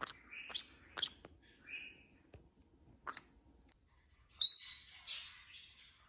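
Black-capped conure making short, sharp chirps and clicks, read as anxiety (wanting to go back to its cage). About four and a half seconds in comes a loud, high call, the loudest sound, followed by a short run of raspier chirps.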